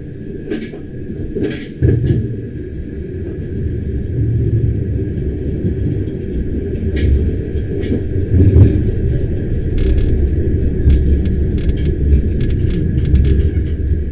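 Bernina Express train running along the track: a steady low rumble that grows louder about two seconds in, with scattered clicks and rattles.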